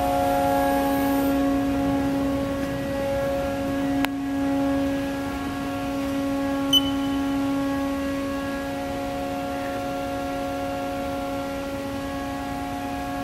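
Steady electrical hum with a fixed pitch and a string of overtones from a powered-up Haas VF-2 CNC machining centre idling, its spindle not turning. There is a single sharp click about four seconds in, and a short high beep about seven seconds in.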